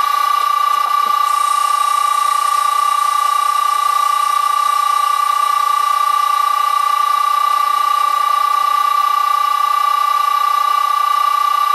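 Loud, steady high-pitched whine with a stack of overtones from an old Allen-Bradley VFD driving the electric motor of a vintage Karger lathe at 60 Hz. The lathe is taking a facing pass on a test piece.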